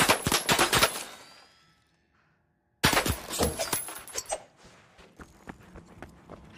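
Rapid flurries of clashing sword blades (wakizashi), metal striking metal many times a second. The first flurry stops about a second in and the blades ring as it fades. After a short silence, a second flurry starts near the middle and thins out into scattered light clicks.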